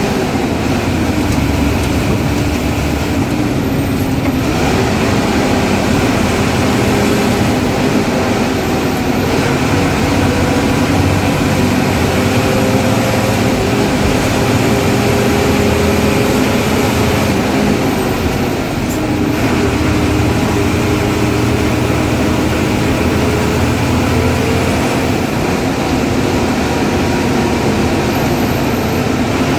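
Ashok Leyland bus diesel engine running on the road. Its note climbs, drops sharply about two-thirds of the way through and climbs again, with a thin high whistle from the turbocharger over it.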